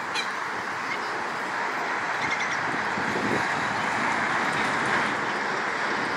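Steady rushing background noise outdoors, with a few faint bird calls about two seconds in.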